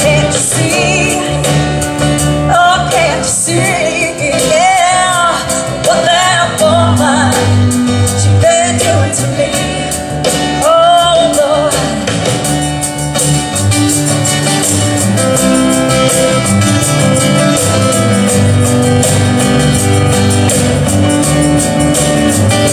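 Live song performance: a woman singing lead over acoustic guitar and steady low bass notes. About halfway through her voice drops out and the guitar carries an instrumental passage.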